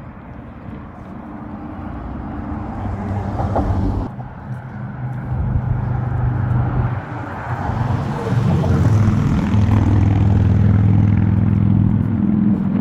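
An engine running with a steady low hum that grows louder over several seconds, dipping briefly about four seconds in.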